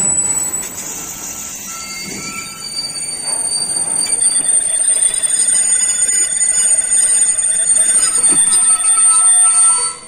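Freight train of intermodal container wagons rolling past on the rails, with several high, steady squealing tones from the wheels over the rolling noise. It grows louder a few seconds in and cuts off suddenly near the end.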